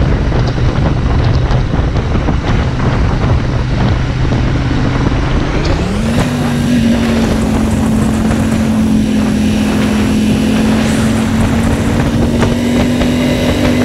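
Royal Enfield Interceptor 650 parallel-twin running at road speed, heard from the rider's seat with heavy wind noise. About six seconds in, the engine note rises smoothly to a higher pitch and holds there.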